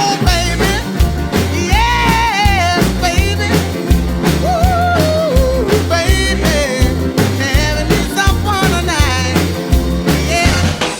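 Upbeat rock and roll music with a stepping bass line and a wavering lead melody above it.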